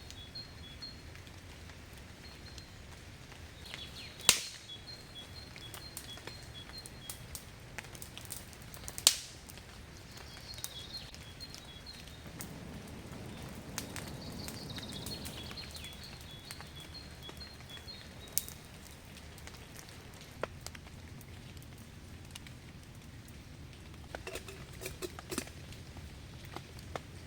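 A bird calling in repeated runs of short, evenly spaced high chirps over a steady outdoor hiss. Two sharp loud cracks come about four and nine seconds in, with a few lighter clicks later.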